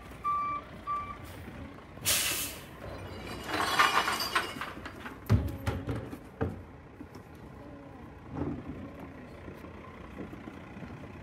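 Garbage truck's reversing beeps that stop about a second in, then a short, sharp hiss of the air brakes about two seconds in and a longer hissing rush around four seconds. Two thumps follow a second or two later.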